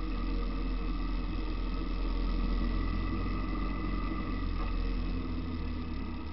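Car interior noise while driving: steady engine rumble and road noise heard from inside the cabin.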